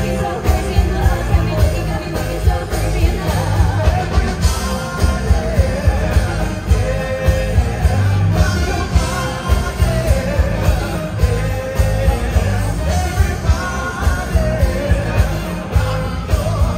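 Upbeat rock-and-roll song with a singer, electric guitars and a steady drum beat, played loud through stage speakers.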